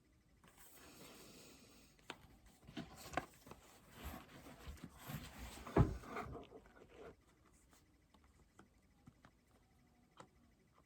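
Hands handling objects: scattered soft taps and rustles between about two and seven seconds in, the loudest knock about six seconds in.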